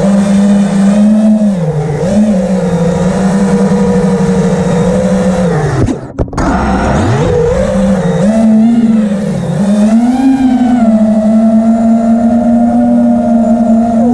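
Motor and propeller of a radio-controlled aircraft, heard from a camera mounted on it: a steady pitched drone that rises and falls with the throttle. About six seconds in, the pitch drops away, cuts out briefly, then climbs back up.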